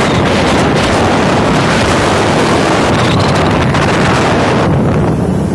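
Loud wind buffeting a phone's microphone from riding on a moving motorcycle, a steady roar with the ride's road and engine noise buried in it.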